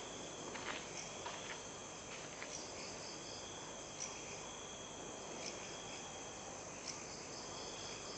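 Faint, steady chirring and trilling of night insects such as crickets, with a few soft clicks scattered through it.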